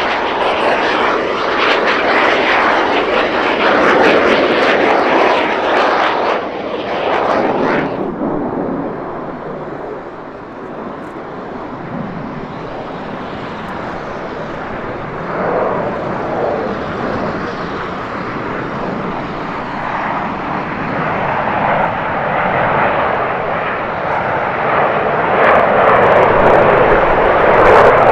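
Jet noise from Aermacchi MB-339 jet trainers and their single turbojets flying a display. A loud pass cuts off suddenly about a third of the way in. The noise then comes back quieter and swells again to a loud pass of the formation near the end.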